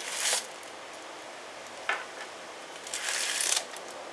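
Plastic bubble-wrap packaging rustling as it is handled and pulled from a small cardboard box, in three short bursts: one at the start, a brief one about two seconds in, and a longer one near the end.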